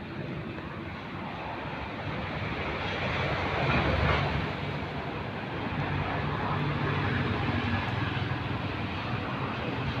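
Steady vehicle noise: a low engine hum under a broad hiss, swelling to its loudest about four seconds in and staying loud after.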